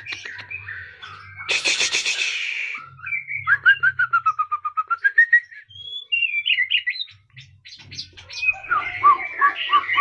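White-rumped shama (murai batu) singing a long, varied song: a harsh buzzy phrase, then a fast run of notes that dips and rises again, then more short whistled notes.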